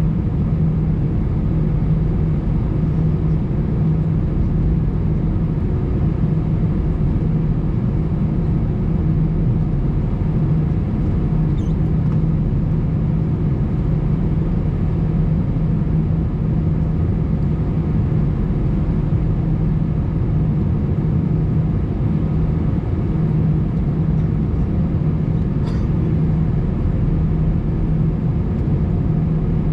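Steady low cabin drone inside an Airbus A320 standing on the ground, with a steady hum running through it.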